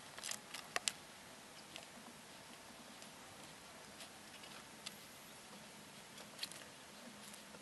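Faint, scattered small clicks and taps from handling paints and a brush while painting a miniature, a few close together at first and then sparse, over a low steady hiss.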